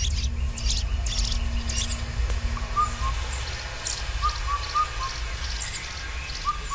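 Forest birds calling: many short high chirps and a repeated short whistled note, over a steady low rumble.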